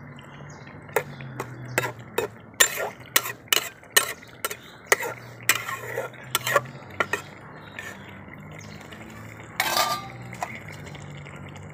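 Metal spatula clinking and scraping against a metal karahi while a simmering curry is stirred: a quick, irregular run of clinks for about six seconds, then one louder clatter near the end.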